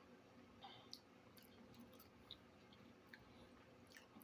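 Near silence with a few faint, scattered mouth clicks from chewing food.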